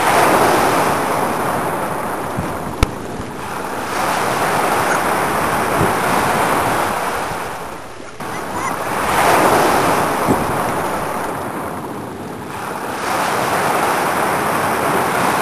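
Small waves washing in shallow water at a beach, each surge of hiss swelling and fading about every four seconds. A single sharp click a little under three seconds in.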